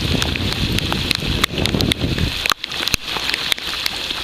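Rain falling on the sea: a steady hiss dotted with many sharp raindrop ticks. Wind buffets the microphone with a low rumble for the first two seconds or so, then drops away.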